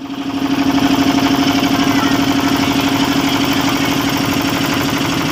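Motorboat engine running steadily with a fast, even chugging pulse, heard from aboard the boat. It fades in over the first second.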